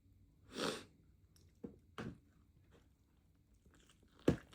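Close-miked biting and chewing of a taco: a breathy crunch about half a second in, then a few sharp crunches, the loudest near the end.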